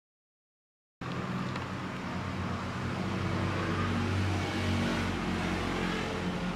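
Dead silence for about a second, then a steady low engine hum over street noise, like a motor vehicle running.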